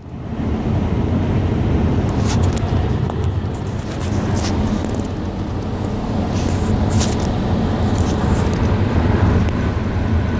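Steady road noise inside a moving car's cabin: a low rumble of engine and tyres with a hiss of wind over it. It comes up from quieter within the first second, and a few brief faint high ticks or scratches sound over it.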